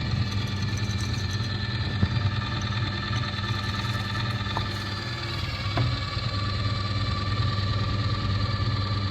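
Electric grinder's motor running at a steady hum, with a couple of faint clicks about halfway through.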